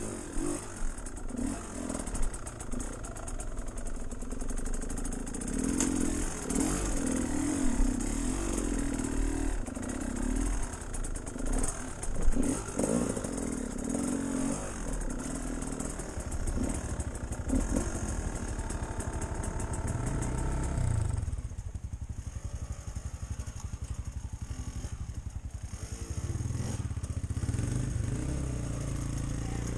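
Off-road vehicle engine running on a trail, its speed rising and falling with the throttle, with occasional clattering knocks; it eases to a lower, quieter drone for a few seconds past the middle, then picks up again.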